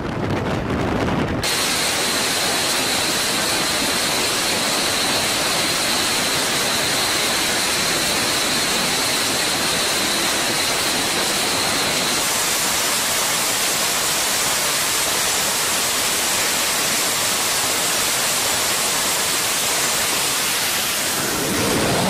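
Jet fighter engines running at high power on a carrier flight deck: a loud, steady rush of noise with a high-pitched turbine whine. The whine jumps higher about halfway through.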